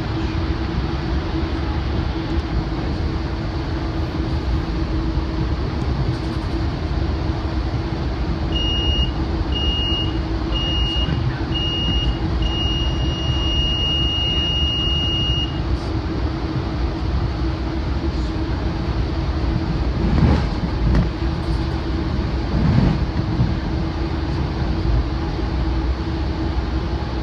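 Steady rumble and drone of a moving train, heard inside a Metrolink Rotem cab car coupled behind a BNSF GE AC4400CW locomotive. About eight seconds in, the cab car's alerter sounds: five short high beeps, then a continuous tone for about three seconds that cuts off; the alerter is a warning that asks the engineer to respond. Two louder swells of rail noise come later.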